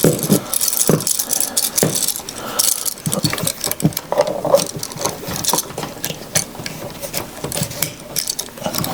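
Irregular small clicks and rattles of hand-work on an electrical receptacle: a screwdriver tightening a terminal screw down onto a hooked wire.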